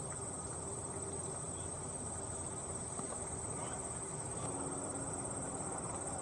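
A steady high-pitched insect chorus that holds one unbroken tone throughout, over low outdoor background noise.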